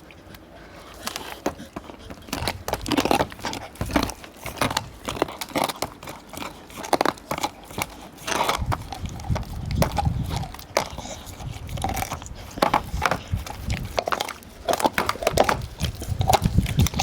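An American Staffordshire terrier gnawing a big raw cow bone up close: irregular cracks and crunches of teeth on bone.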